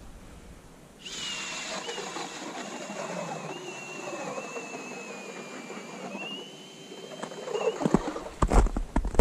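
Cordless drill driving an ice auger through the ice, a steady motor whine with a grinding hiss. It starts about a second in, sags slightly in pitch under load and rises again, then stops about eight seconds in.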